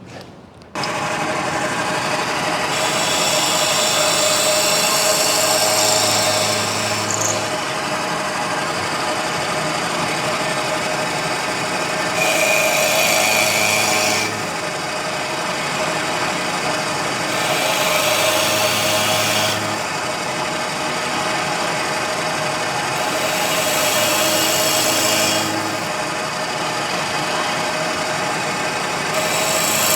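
Milling machine running steadily while a 9/16-inch plug cutter bores into wood to cut plugs; five rough, high-pitched cutting passes of about two seconds each come about every five to six seconds over the machine's steady hum.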